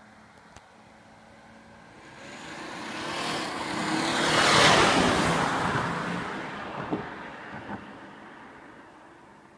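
BMW 335d xDrive F30, with its 3.0-litre twin-turbo diesel straight-six, driving past. The sound builds over a few seconds, peaks about four and a half seconds in, then fades away.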